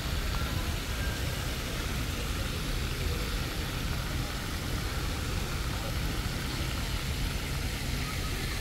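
Steady rush of a plaza fountain's spraying ground jets over a continuous low rumble of city traffic.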